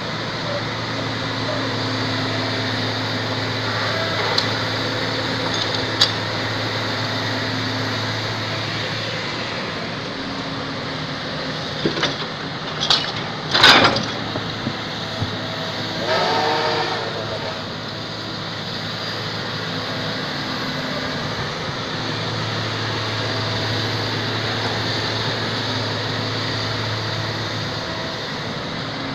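Excavator's engine running steadily, with a few sharp clanks, the loudest about fourteen seconds in, and a brief gliding whine a little after.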